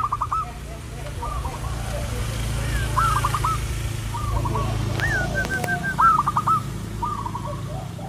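Zebra doves (perkutut) cooing: short phrases of quick staccato coo notes repeat about once a second, over a steady low rumble.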